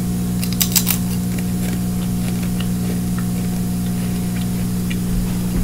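Steady electrical hum with a hiss behind it, with a few sharp crunches about half a second in as a tortilla chip is chewed, and faint ticks of chewing after.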